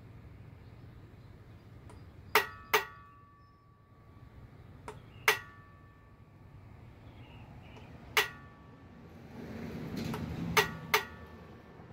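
Hammer tapping a steel punch to mark a number into an engine connecting rod cap: six sharp metallic taps with a short ring. They come as a quick pair, two single taps a few seconds apart, then another quick pair near the end.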